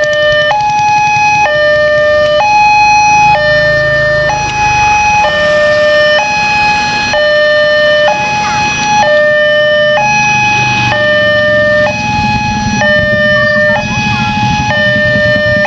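Indonesian railway level-crossing warning alarm sounding: an electronic two-tone signal alternating between a lower and a higher note, each held about a second, the warning that a train is approaching and the crossing is closed. Motorcycle and car engines run underneath, swelling twice.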